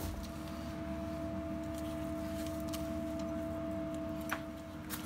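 Steady hum with two constant tones from the hydraulic system driving a pipe-bursting puller, with a small click about four seconds in and a sharp metal clink at the very end.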